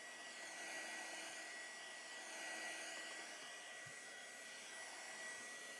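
Handheld heat gun blowing steadily with a thin high whine, drying fresh paint on a ceramic crock.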